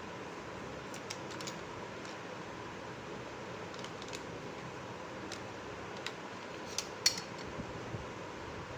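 Scattered light clicks and taps of small plastic toy pieces being handled and set down, about seven in all, the loudest a little after seven seconds in, over a steady background hiss.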